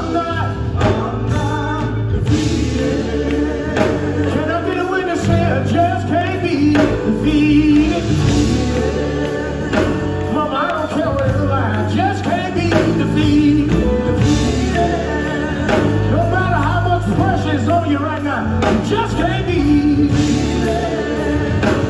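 Live gospel music: a male vocal group singing over electric bass guitar and keyboard.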